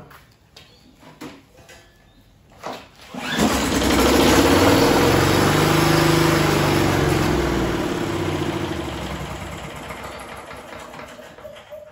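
Talon four-stroke walk-behind lawnmower engine, freshly primed, catching on a pull of the recoil starter about three seconds in and running steadily. Over the last few seconds it gradually dies away.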